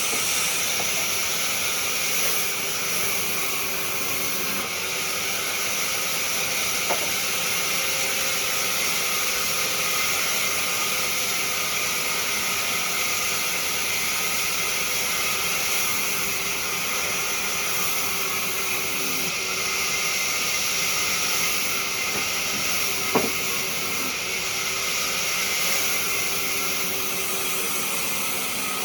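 Wood lathe running with a turning tool cutting the spinning wood: a steady hiss over a faint motor hum, broken by a short tick about a quarter of the way in and a sharper knock about three-quarters of the way through.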